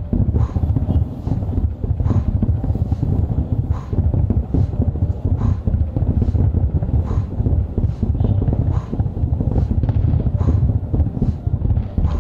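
Distant fireworks display: shell bursts merge into a continuous low rumble, with a sharper report a little more than once a second.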